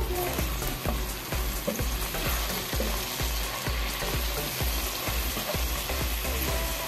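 Minced garlic sizzling as it is sautéed in hot oil in a frying pan, with a spatula scraping and stirring it against the pan over and over.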